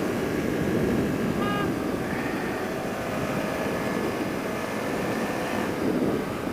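Motorcycle riding at steady speed: the engine runs under a constant rush of wind noise.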